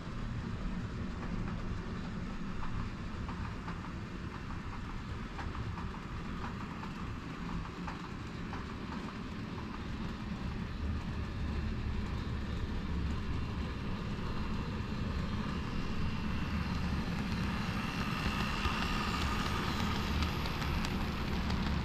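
Model railway train running on the layout: a steady low motor hum and wheel rumble with faint clicks over the rail joints. It grows louder in the last few seconds, when a high whine comes in.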